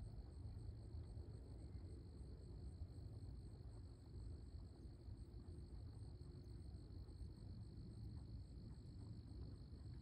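Faint outdoor ambience: a steady high-pitched insect chorus, such as crickets, over a low, even rumble.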